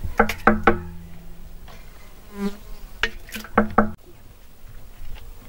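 A metal spoon clinking against a metal pot, three quick knocks near the start and four more about three seconds in, as yogurt is scooped into a wooden butter churn. An insect buzzes close by.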